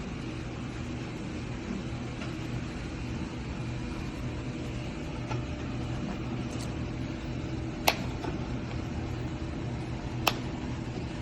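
Stainless steel percolator coffee urn heating its water, a steady hum and rumble. Two sharp clicks come near the end, a couple of seconds apart.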